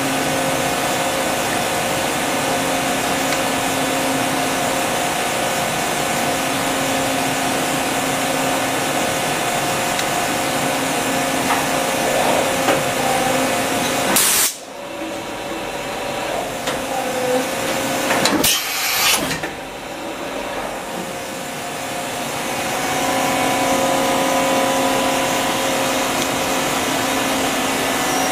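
Daewoo DHC400 horizontal machining center running, a steady whirring machine noise with held hum tones and a lower hum that comes and goes every couple of seconds. About halfway through, a short burst is followed by a sudden drop in the noise. A loud hiss of about a second comes a few seconds later, and then the running noise builds back up.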